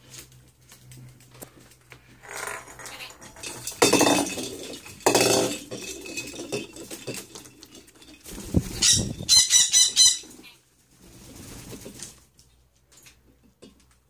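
Pet parrots, a dusky lory and an Alexandrine parakeet: wing-flapping in loud bursts about four and five seconds in, then a quick run of harsh, high, repeated calls around nine to ten seconds.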